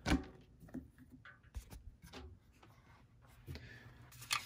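Faint handling sounds: a sharp click right at the start, then scattered light rubbing and taps, and a quick run of crinkles near the end as a hand touches the plastic snack-bar wrappers.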